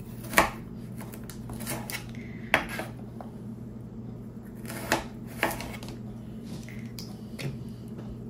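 Kitchen knife slicing thick carrots on a baking tray: irregular sharp knocks of the blade against the tray, every second or two.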